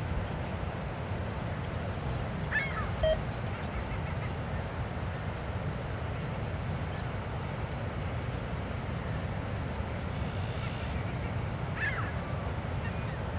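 A steady low rumble, with a few short, arched bird calls over it: one a little before three seconds in and another near the end, plus a brief tick just after the first call.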